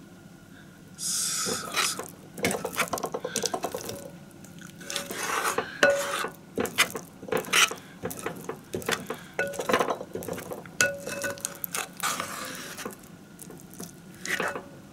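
A utensil clinking, knocking and scraping against a pot while a thick hot pot of ramen noodles and mochi is stirred, with short ringing pings. There is a brief hiss about a second in.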